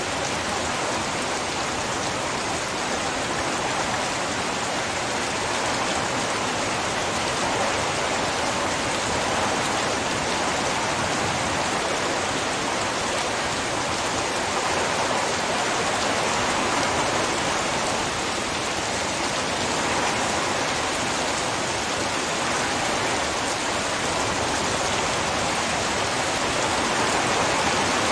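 Heavy rain falling in a steady downpour, a dense, even hiss of drops.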